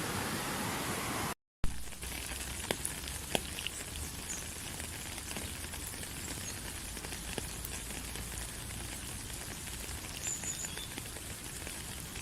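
Steady rushing water noise that cuts off abruptly, then after a brief dropout a quieter outdoor hiss with scattered light ticks and drips and a faint high chirp near the end.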